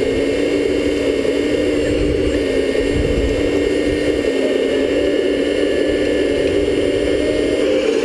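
The drive of a 1/14-scale RC model vehicle running steadily, a constant machine hum that shifts slightly in pitch about four seconds in.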